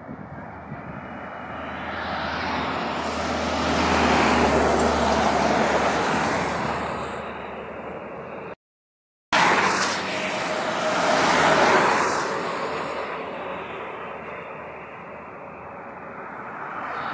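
Vehicles passing at highway speed: tyre and engine noise swells and fades twice, with a short total dropout between the passes, and builds again near the end as another vehicle approaches.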